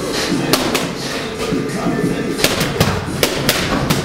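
Boxing gloves smacking into handheld focus mitts in quick combinations: two sharp smacks about half a second in, then a run of five over the last second and a half.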